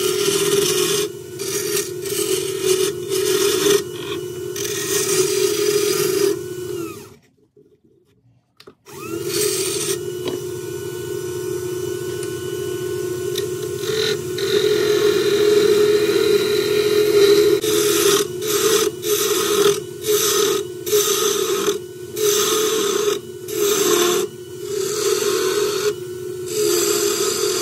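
Wood lathe running with a steady hum while a hand-held turning tool cuts into a spinning oak blank, the cutting hiss starting and stopping in short passes. About seven seconds in, all sound drops out for a second or so, then the lathe and the cutting resume.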